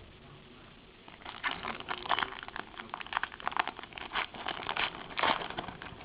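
Baseball trading cards and their pack wrapper being handled: rapid rustling and crinkling from about a second in, loudest near the end.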